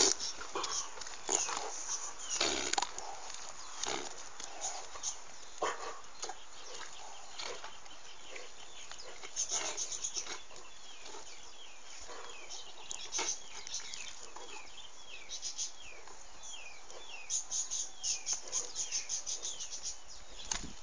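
Donkeys moving about, with irregular hoof knocks and scuffs and short grunting noises. A loud knock comes right at the start, and quick high chirps repeat through the second half.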